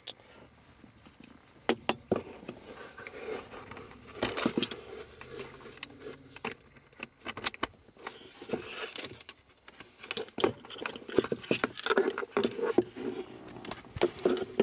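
Irregular clicks, knocks and rustling from a handheld camera being handled while an audio cable and inline preamp adapter are plugged in.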